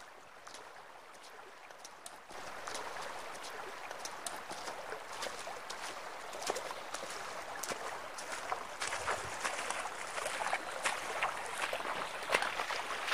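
Shallow river water running and splashing, a steady rush dotted with many small irregular splashes, growing louder about two seconds in and again near nine seconds.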